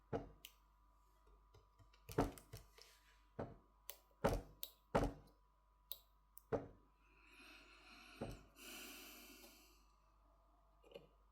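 Scattered sharp clicks and taps, about nine in a few seconds, from small tools and smartphone parts being handled during reassembly, followed by a soft rustle lasting a couple of seconds.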